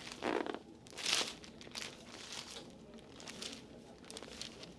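Rustling and swishing from a massage, hands working over the client's arm, skin and cloth, with the loudest swish about a second in and softer brushing after.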